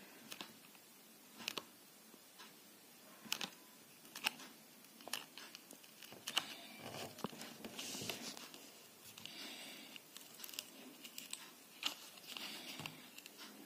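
Plastic card being slid under the edge of a phone's glued back glass to pry it loose: faint scattered clicks and scraping as the card is worked along the seam, with crinkling of its plastic sleeve.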